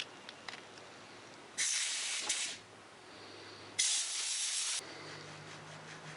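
Two short blasts of compressed air from a blow gun, each about a second long, cleaning out a lawn mower carburetor's emulsion tube and passages.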